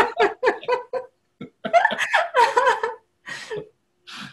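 People laughing in short choppy bursts, with a few words mixed in.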